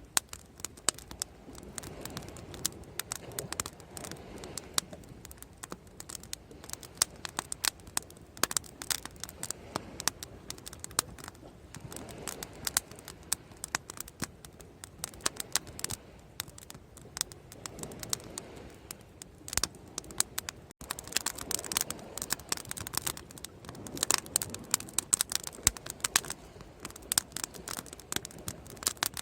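Bonfire crackling and popping with dense, irregular sharp snaps throughout, over a soft low rush that swells and fades every few seconds.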